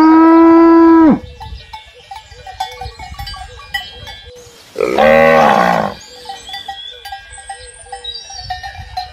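Cows mooing: a long, steady moo that ends about a second in with a drop in pitch, then a second, shorter moo about five seconds in. Faint bells clink between the two calls.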